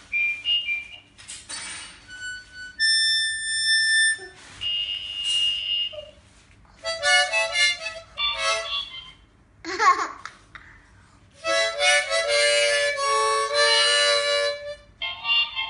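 A toddler blowing short bursts on a harmonica in phrases with pauses between them, traded back and forth with a talking toy cat that repeats the sounds back.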